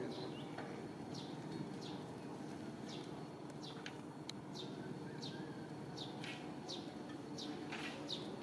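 A bird chirping: short, high, falling chirps repeated one or two a second over a steady low background hiss.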